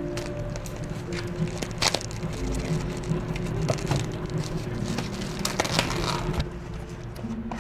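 Irregular clicks, knocks and crunching handling sounds over a few faint held tones of background music.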